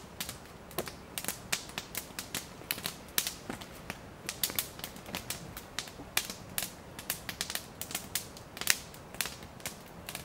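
Campfire crackling, with sharp irregular pops several times a second.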